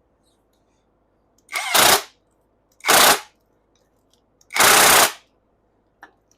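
Impact wrench hammering in three short bursts, the last the longest, running the new nut down onto the top of a new rear shock absorber's shaft to secure the upper mount.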